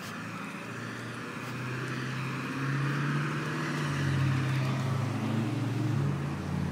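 Road traffic: a motor vehicle's engine humming and its tyres hissing as it passes on the street, growing louder to its loudest about four seconds in, then easing off.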